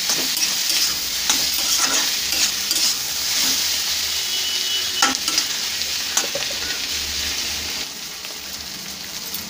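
Taro stolons, onion and green chilli sizzling in oil in a kadai while a metal spatula stirs them, with scattered scrapes and knocks of the spatula on the pan. The sizzle eases a little near the end.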